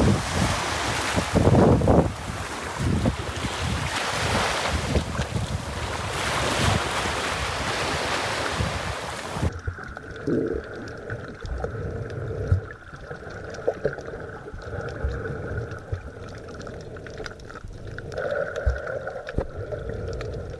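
Small waves washing onto a sandy shore, with wind buffeting the microphone. About nine and a half seconds in, this cuts to a muffled underwater recording with scattered faint clicks and crackles.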